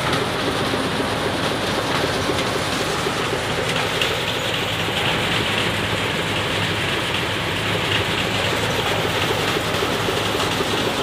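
Tractor-PTO-driven groundnut thresher running steadily, its drum, V-belts and pulleys turning together with the tractor engine in one even mechanical din.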